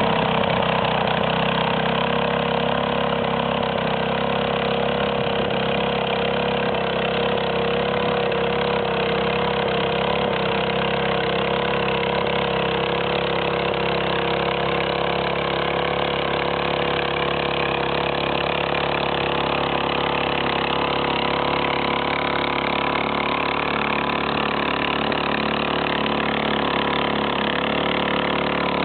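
A farm machine's engine running steadily at constant speed, without revving or stopping.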